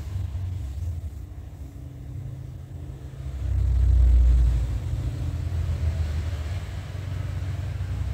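A low rumble that swells to its loudest about halfway through, then settles back.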